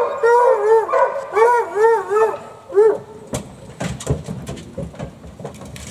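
Hunting hounds whining and yelping in a quick run of short, arching cries. After about three seconds the cries give way to a string of sharp knocks and rattles, which fits the hounds being let out of the truck's dog box.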